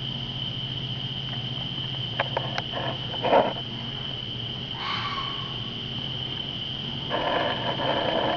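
Night insect chorus, a steady high-pitched drone, over a low steady hum. Over it come a few clicks, a louder short call a few seconds in, another call about five seconds in, and a longer raspy call near the end, from an animal that cannot be identified.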